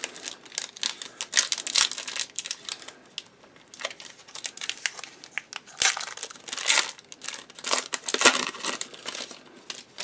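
Irregular crinkling and crackling of plastic trading-card packaging being handled, with some tearing.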